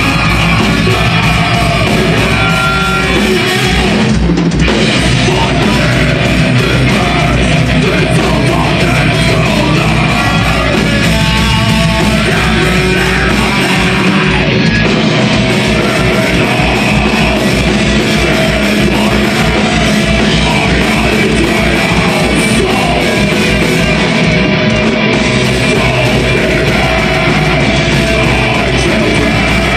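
Melodic death metal band playing live and loud: vocals sung into a microphone over electric guitars and a drum kit.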